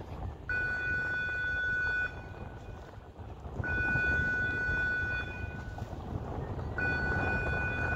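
Warning signal of a swing footbridge: a steady high electronic tone sounding three times, each lasting about a second and a half, roughly three seconds apart. A low wind rumble on the microphone runs underneath.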